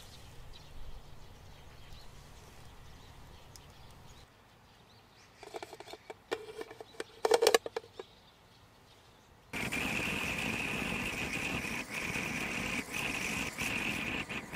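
Metal clinks and scrapes as a wire grill rack holding the burger is slid into a soot-blackened metal pot. About halfway through, a loud steady fire starts suddenly and keeps burning around the pot, with occasional crackles.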